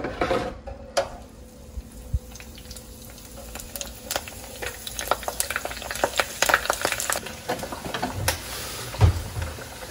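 Halved raw Brussels sprouts deep-frying in an electric deep fryer, the oil sizzling and crackling as the water in the sprouts boils off. The crackle grows busier after a few seconds, with a dull bump near the end.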